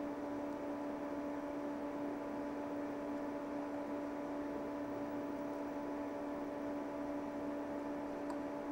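A steady hum over a faint hiss.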